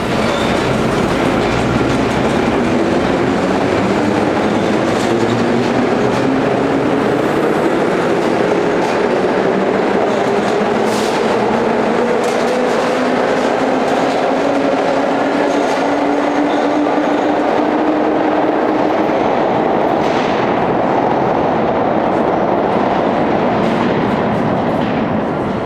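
Vintage R1/R9 New York City subway train pulling out of an underground station: the motors whine, rising slowly in pitch as it gathers speed, over a steady loud rumble with the wheels clacking on the rail joints. The whine drops out about two-thirds of the way through, and the noise fades near the end as the last car leaves.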